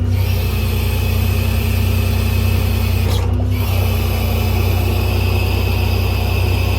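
6.7 Cummins diesel running with the PTO engaged, its hydraulic pump whining steadily as the hydraulic outriggers are lowered. The whine breaks off briefly about three seconds in, then resumes.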